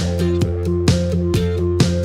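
Background music with a steady beat, about two hits a second, under a simple stepping melody.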